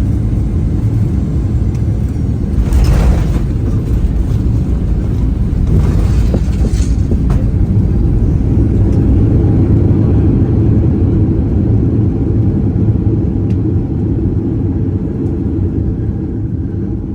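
Deep, steady rumble inside a Boeing 737-900ER cabin as the airliner rolls out on the runway, engines and wheels loud under heavy braking. Two brief rattles come about three and six seconds in, and the rumble eases off near the end as the jet slows.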